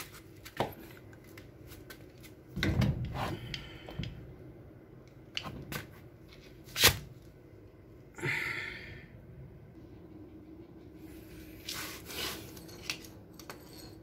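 Hands and tools working on a washing machine's motor mount and drive belt: scattered clicks, knocks and short scrapes, with one sharp knock about seven seconds in.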